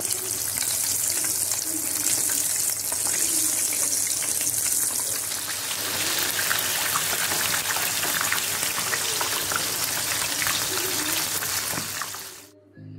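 Corn-flake-coated potato cheese balls deep-frying in hot oil: a steady, loud sizzle thick with fine crackling. It cuts off suddenly near the end.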